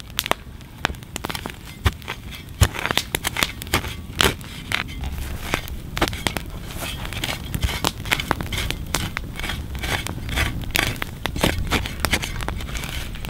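Wood campfire crackling with frequent sharp pops, while a shovel blade scrapes and chops into the soil beside it, with a few heavier knocks.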